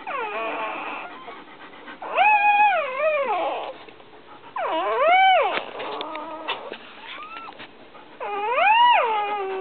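Newborn puppy crying: three loud high cries about two, five and eight seconds in, each rising then falling in pitch and lasting about a second, with fainter cries between.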